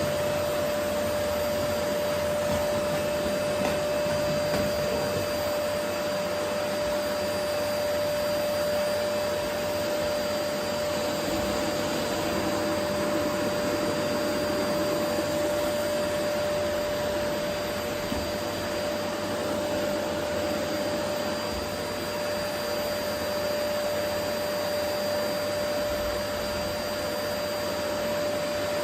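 Vacuum cleaner running steadily: an even rush of air with a constant motor hum, no change in speed.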